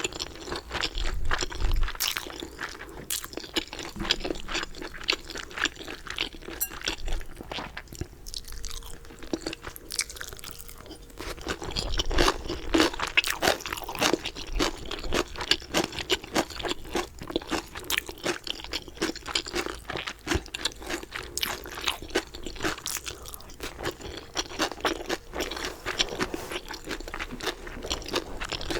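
Crispy galbi-flavoured fried chicken being bitten and chewed close to the microphone: a dense run of loud crunches and crackles, easing off for a few seconds about a third of the way in.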